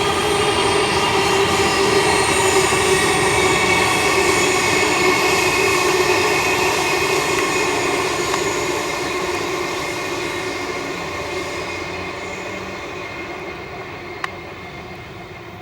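A train running past, its rumble carrying several steady whining tones. It is loudest in the first few seconds and fades away steadily as it draws off. There is one short click near the end.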